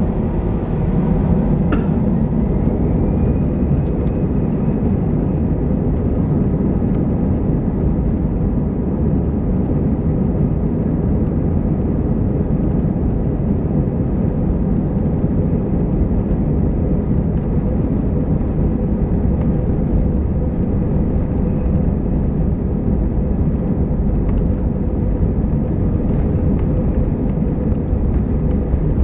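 Airbus A320 jet engines and airflow heard from inside the passenger cabin: a loud, steady rumble with a faint hum running through it.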